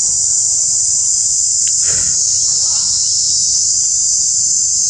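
A steady, loud, high-pitched drone of insects in the forest, with one brief short sound about two seconds in.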